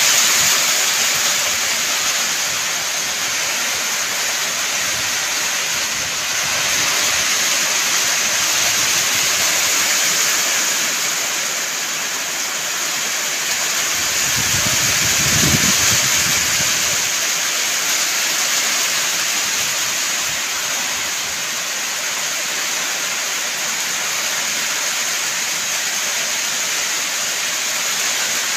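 Heavy downpour as a steady, loud hiss: rain beating on a corrugated roof overhead and streaming off its edge. A brief low rumble comes about halfway through.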